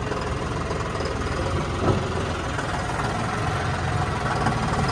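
John Deere tractor's diesel engine running steadily at low revs, with a single short thump about two seconds in.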